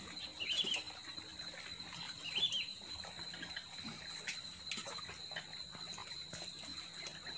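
Two short bird chirps, about two seconds apart, over a steady thin high-pitched tone and a few faint clicks.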